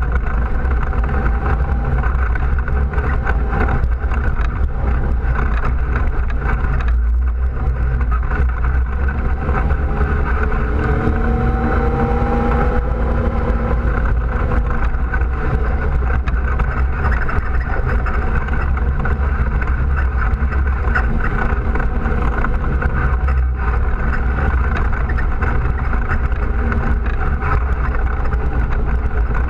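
ATV engine running steadily while riding a gravel trail, with a constant low rumble. The engine note rises and falls briefly about halfway through.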